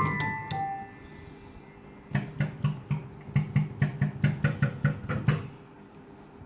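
Casio AP-470 digital piano: a falling run of notes ends about a second in, then about a dozen quick, very high notes in its top octave, each with a dull low thud. This is the weird, glitchy top-octave sound that a factory reset does not cure, from a fault later fixed by replacing the main board.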